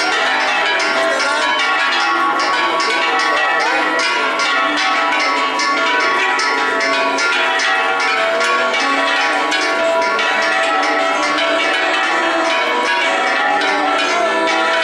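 Church bells ringing in a rapid, continuous peal, with quick repeated strikes over a wash of overlapping ringing tones.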